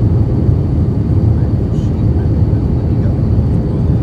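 Cabin noise of an Airbus A321-231 in flight: a steady low rumble of airflow and its IAE V2500 engines, with a faint steady high whine.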